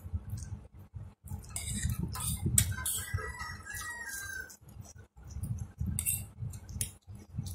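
Noodles being slurped and chewed, with plastic forks scraping and clinking on plates. A brief high wavering tone sounds about three seconds in.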